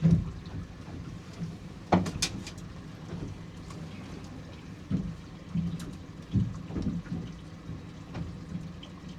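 Irregular thuds and knocks with wind rumbling on the microphone, aboard a small boat in a choppy sea, over a low steady hum.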